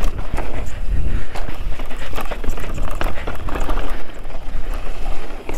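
Mountain bike rolling fast down a rough dirt and stone trail: tyres crunching over the ground with a dense, irregular clatter of chain and frame, over a low wind rumble on the mount-camera microphone.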